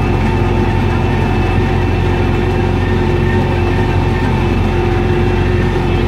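Belarus 952.3 tractor's diesel engine running steadily under load, pulling a three-furrow mounted plough through the soil.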